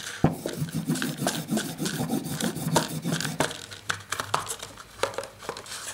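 Repeated rubbing strokes on a two-sided leather paddle strop loaded with green polishing compound, in quick irregular scrapes.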